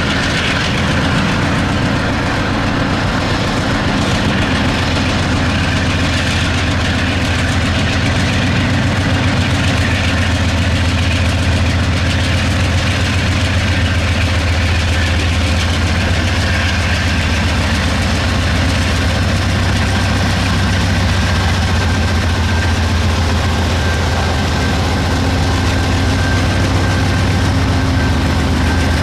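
Norfolk Southern diesel freight locomotives running with a steady low rumble.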